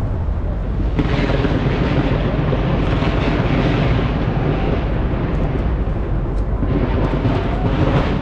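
Fireworks fired from a skyscraper bursting overhead: a dense, continuous rumble of bangs, louder from about a second in and swelling again near the end.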